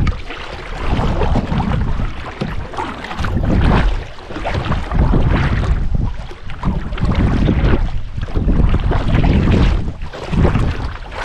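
Wind buffeting the microphone while out in a canoe: a low rumble that surges and drops every second or two.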